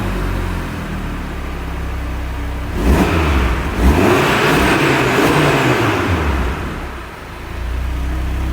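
2022 Audi RS3 Sportback's turbocharged 2.5-litre five-cylinder engine idling through its exhaust, then revved about three seconds in, with two quick blips, before dropping back to idle near the end.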